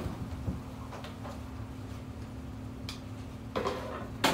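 A few light clicks, two close together near the end and one sharper click just after, over a steady low hum.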